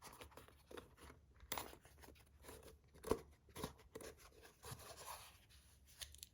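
Faint handling noise as a fidget toy is worked out of its box: rustling and scraping with scattered light clicks, and a sharper knock about three seconds in.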